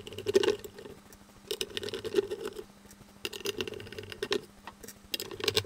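Small screwdriver turning out the screws that hold the LED board in the PAR fixture, heard as four short bursts of rapid scratchy clicking.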